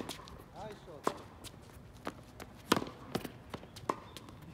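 Tennis rally on a hard court: sharp pops of the racket strings meeting the ball, with ball bounces between them, one every half second to a second. The loudest pop comes about two-thirds of the way in.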